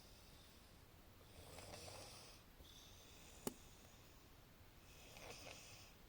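Faint snoring from a sleeper: two slow, noisy breaths about three and a half seconds apart, with a single sharp click between them.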